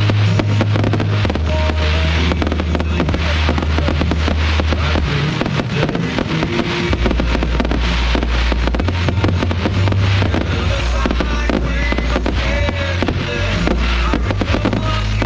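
Fireworks going off in rapid succession, many bangs and crackles close together, over music with sustained bass notes.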